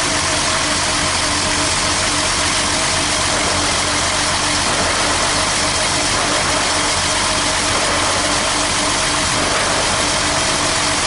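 Mercedes-Benz W108 straight-six engine idling steadily.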